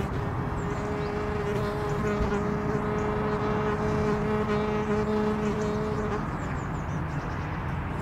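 Outdoor meadow ambience: a steady low drone sets in near the start and fades out about six seconds in, over constant low rumbling background noise, with a few faint high bird chirps.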